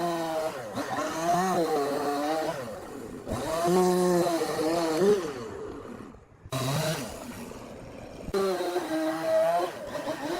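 Chainsaw running and cutting wood, its pitch rising and falling with the load, with brief drops about three, six and eight seconds in.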